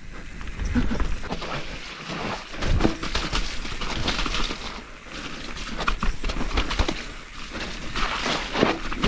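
2019 YT Capra CF Pro Race mountain bike riding down a trail: tyre noise with a rapid series of rattles and knocks from the bike over rough ground, over a steady low rumble.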